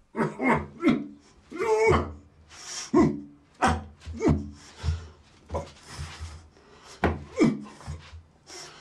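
A man's voice making about a dozen short wordless vocal noises in quick succession, with breathy hisses between some of them.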